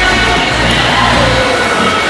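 Background music with held notes over a bass line; the bass drops out about one and a half seconds in.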